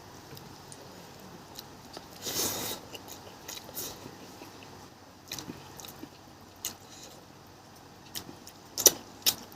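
Eating sounds while fish is being eaten: scattered soft chewing and mouth clicks, a short noisy swell about two seconds in, and two sharp clicks near the end.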